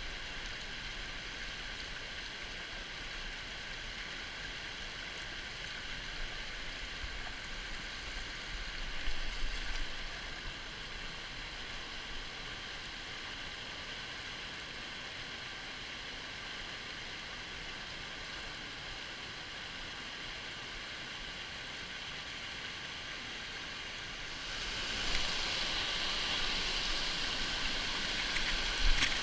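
Small stream tumbling over little cascades: a steady rush of water, which grows louder near the end as the rushing white water comes close.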